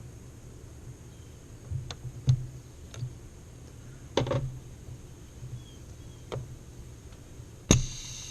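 Scattered clicks and knocks of hand-handled car parts: the freed blow-off valve and its vacuum line being worked loose and moved about. A sharp knock with a short ring near the end is the loudest.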